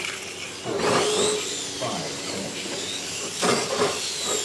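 Motors of 1/8-scale RC racing motorcycles whining as they lap, the high pitch gliding up and down as they speed up, slow and pass. There are two louder noisy surges, about a second in and near the end.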